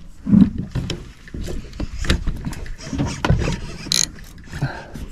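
Irregular knocks, clunks and rustling from movement aboard a small boat, with no steady engine or tone.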